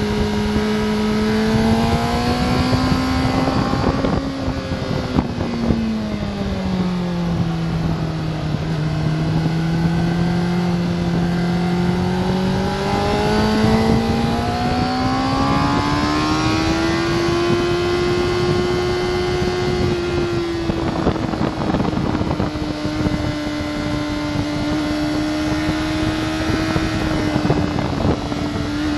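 Honda sport bike's engine heard from onboard at track speed: its note rises, drops a few seconds in as the rider eases off, then climbs steadily under acceleration and holds high. Wind rushes and buffets over the microphone.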